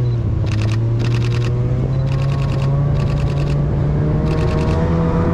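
Snowmobile engine running at a steady cruise, its pitch drifting slightly, with short bursts of rapid rattling or clicking about once a second.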